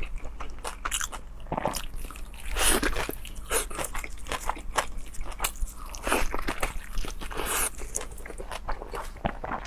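Close-miked chewing and biting of cold liangpi noodle sheets: many quick mouth clicks, with a few longer breathy noises.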